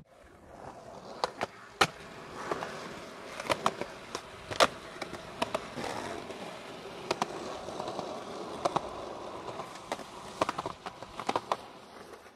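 Skateboard wheels rolling on asphalt, with irregular sharp clacks and cracks of the board and trucks striking the pavement.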